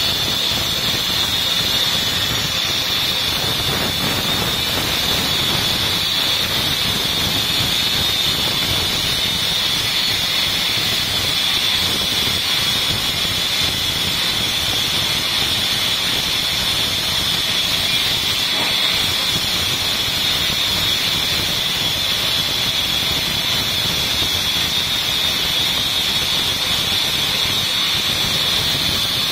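Powered saw cutting vengai (Indian kino tree) timber, running steadily: a continuous rushing noise with a high steady whine over it, no strokes or breaks.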